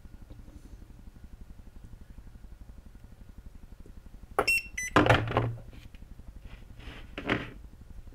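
BIFRC portable battery spot welder firing on mode 4: a short high electronic beep about four seconds in, then a sharp crack as the probes weld a nickel-plated steel strip to a lithium cell, followed by a few lighter knocks from the probes being handled and put down.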